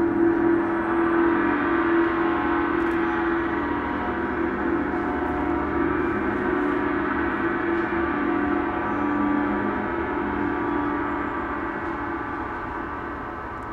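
Large gong played with a soft felt mallet, a sustained, shimmering wash of many overlapping tones that slowly fades over the last few seconds.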